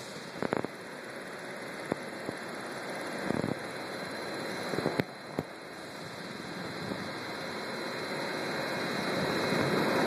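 An unpowered MARTA rapid-transit rail car rolling slowly along the shop track as it is moved. There is a steady running noise that grows louder, and a few short clicks and clunks in the first half.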